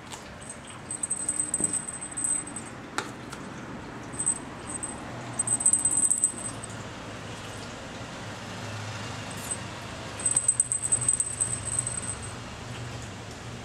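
Small jingle bell on a cat toy jingling in short bursts as kittens bat it around, several times over, above a faint steady low hum. A single sharp tap comes about three seconds in.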